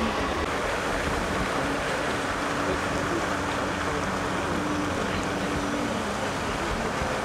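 Wind on the microphone over a steady outdoor hiss by the water, with a faint steady hum in the middle.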